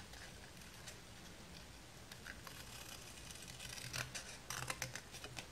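Scissors cutting black cardstock: a few short, faint snips and paper scrapes about four to five seconds in, with light paper handling around them.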